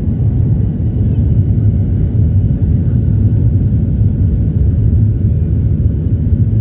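Steady low rumble of a plane's engines and airflow during take-off, even and unbroken.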